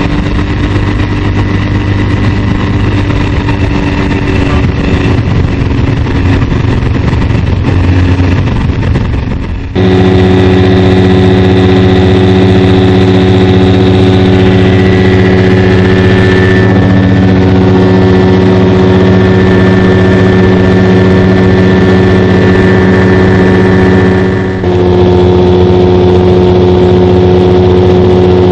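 Rans Coyote ultralight's engine and propeller droning steadily, heard from inside the cockpit. About ten seconds in the drone jumps abruptly louder, with a steadier pitch, and near the end its tone shifts suddenly again.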